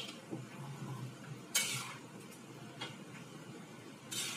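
A metal spatula scraping and stirring beef rendang in a metal wok, with short scrapes about one and a half seconds in and near the end, and a couple of light clicks against the pan. The meat is nearly cooked and shrinking down.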